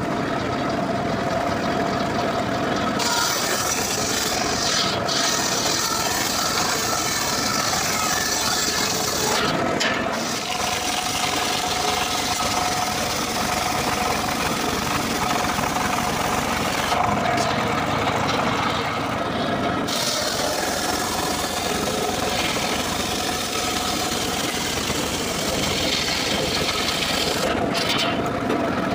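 Homemade circular saw bench ripping dry acacia wood: the spinning blade cuts steadily with a loud hiss over a constant hum. The cutting noise thins out briefly a few times.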